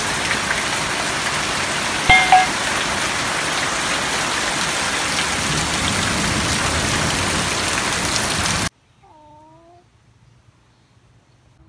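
Heavy rain pouring down steadily, with a short pitched call about two seconds in. The rain cuts off abruptly near the end, leaving only faint humming.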